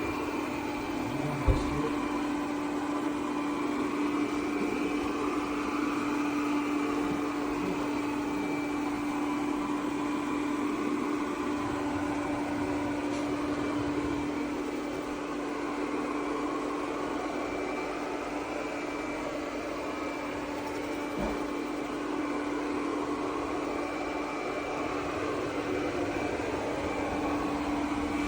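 Teendow D20S Max+ robot vacuum and mop running in mop mode: a steady motor hum with a fainter high whine. A single knock about a second and a half in.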